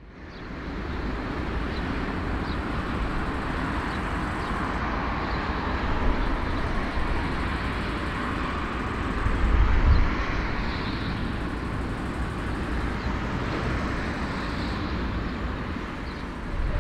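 Airbus A340 jet engines running at taxi power, a steady rushing noise with a faint high whine. Low rumbles, wind on the microphone, swell about six and ten seconds in.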